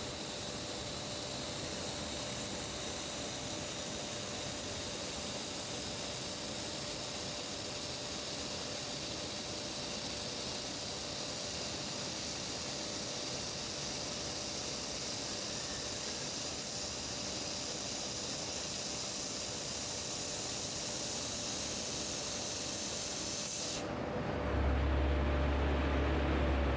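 An 8 kW laser cutting 25 mm carbon steel plate: a steady hiss of the cutting jet with a faint steady whine under it. About 24 seconds in, the hiss cuts off abruptly and a louder low rumble takes over.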